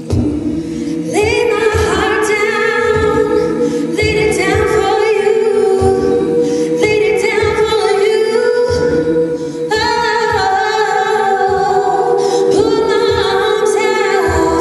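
All-female a cappella group singing in close harmony through microphones, sustained chords over a steady low beat of vocal percussion.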